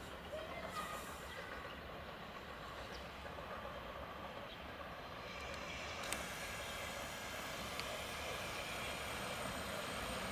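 ET22 electric locomotive running slowly into the station, a faint steady rumble that grows gradually louder as it nears. There is one brief click about six seconds in.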